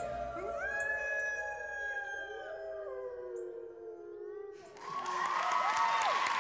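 Several wolf howls overlapping, each rising and then held, dying away about four and a half seconds in. Then audience applause and cheering breaks out.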